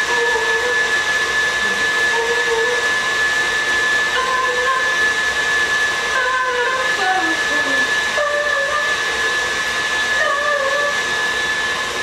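Electric stand mixer running steadily at speed: a constant whir with a thin high whine. A wavering tune sounds over it.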